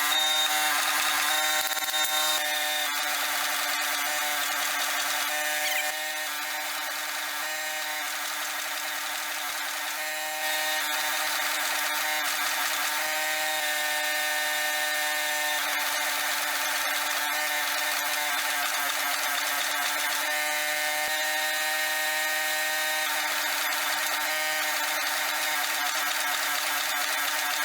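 Hydraulic forging press running: a steady motor and pump hum with several held tones, easing slightly about six seconds in and picking back up around ten seconds as the work goes on.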